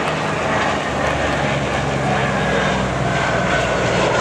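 An F/A-18 jet fighter and a WWII propeller fighter flying past together in formation: a loud, steady engine drone with a low hum from the engines and a faint higher whine above it.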